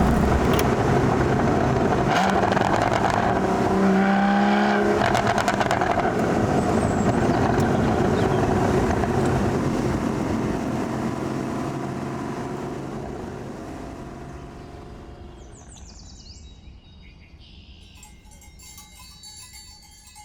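Porsche 981 Boxster GTS's flat-six engine and exhaust running under way, rising in pitch briefly about four to five seconds in, then fading out over the second half. Faint chiming notes come in near the end.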